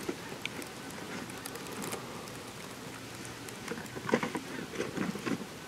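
Light rustling and crackling of dry stalks over a steady faint hiss, with a short cluster of louder rustles about four seconds in.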